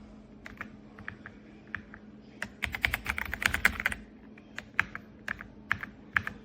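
Keys of an RK Royal Kludge R75 gasket-mounted mechanical keyboard being pressed. Single keystrokes come about every half second, with a quick run of fast typing midway, then single presses again.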